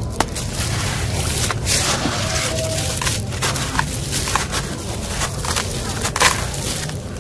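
Wet, gritty concrete crumbled by hand into a tub of water: grains crunch and grind between the fingers and patter and splash into the water, with sharp crackles every second or so.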